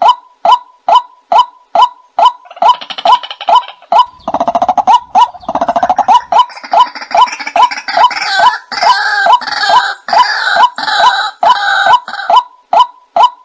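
White-breasted waterhen calls: a steady series of short, clipped notes about twice a second. From about 2 to 12 seconds in, a harsher, busier run of calls joins them, low and rattling at first, then higher and fuller, before the even notes carry on alone.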